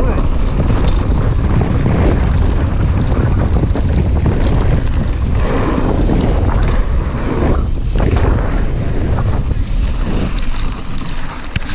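Wind buffeting the camera's microphone as a mountain bike rolls fast down a gravel trail, with tyre noise and the clicks and rattles of the bike over bumps. The rush eases a little near the end.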